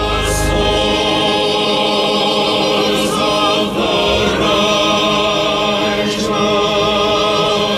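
A choir singing slow, held notes with a wavering vibrato.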